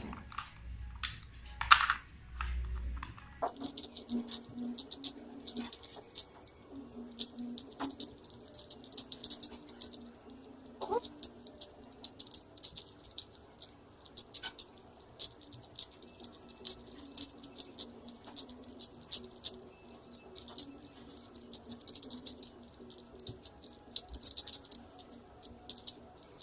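Plastic Rubik's cube being twisted fast, its layers clicking and rattling in quick irregular runs. A few louder knocks come in the first three seconds, then the clicking goes on almost without a break.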